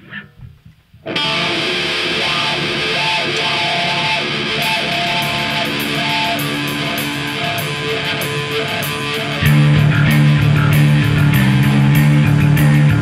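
Heavy rock band playing live in a rehearsal room. A distorted electric guitar riff starts about a second in, with steady cymbal taps joining, and about nine seconds in the band comes in fuller and heavier, with bass and drums.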